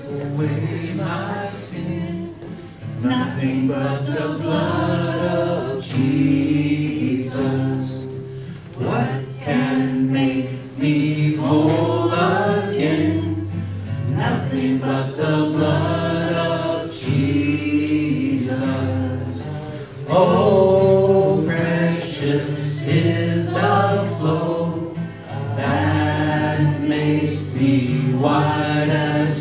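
A worship song sung by a woman into a microphone, with acoustic guitar accompaniment and a steady chord underneath.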